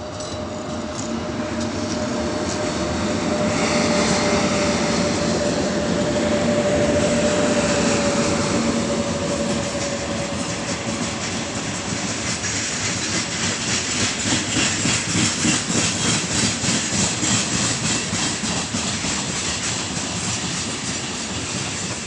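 Freight train hauled by two twin-section 2ES5K Ermak electric locomotives passing. While the locomotives go by there is a steady whine. After about twelve seconds the wagons' wheels take over, clattering rhythmically over the rail joints at about two to three beats a second.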